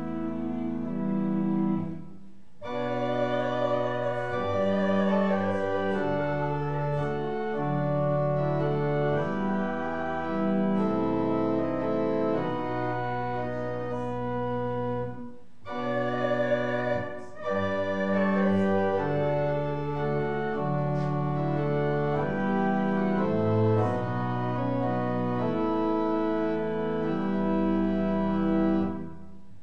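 Church organ playing slow, sustained chords in long phrases, with brief breaks between phrases about two seconds in and again halfway through.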